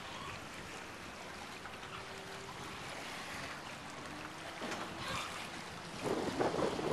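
Small wind-driven waves lapping and sloshing on choppy open water. Wind buffets the microphone in a couple of gusts, the stronger one near the end.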